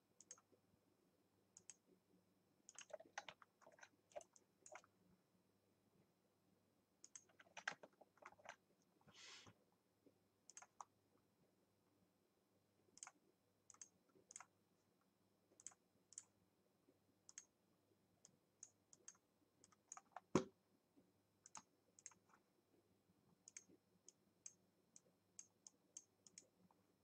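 Faint, scattered clicks of a computer mouse and keyboard, sometimes several in quick succession, with one louder click about twenty seconds in and a brief hiss just after nine seconds.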